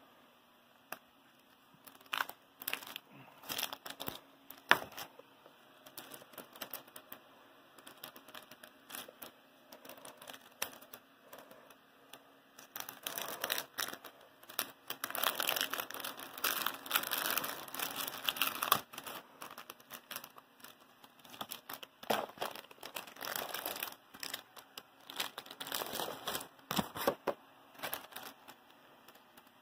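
Cellophane shrink-wrap crinkling as a wrapped pack of printed booklets is handled and unwrapped, with scattered clicks and knocks of plastic sprues and the cardboard box being moved. The crinkling is densest from about 13 to 19 seconds in and again from about 22 to 27 seconds in.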